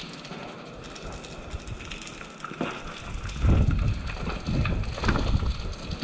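Footsteps and scuffs on a gritty concrete floor, with the rustle and knocks of the player's own gear. Several heavier low thuds come in the second half.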